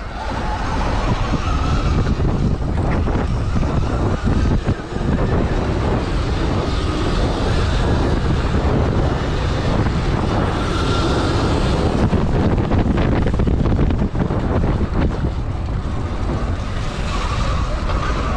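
Wind rushing over the microphone while a Sur-Ron Light Bee electric dirt bike is ridden off-road, with a faint high motor whine coming through at times.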